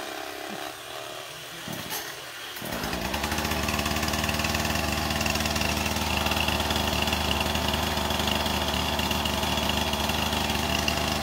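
Chainsaw starting up about two and a half seconds in, then running steadily at high speed, with a short knock just before it.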